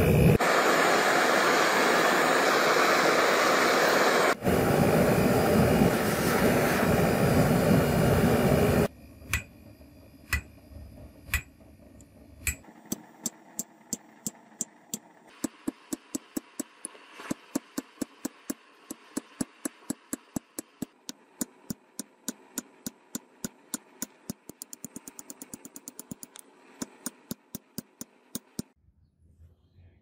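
A small pipe forge's burner running with a loud, steady rush for about nine seconds. Then a hammer strikes red-hot spring steel on an anvil: sharp, separate blows about two a second, quickening for a while near the end before stopping.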